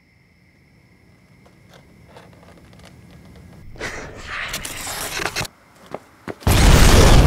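Film sound effect of a bazooka firing: a low rumble builds up, then a sudden, very loud blast about six and a half seconds in that carries on past the end.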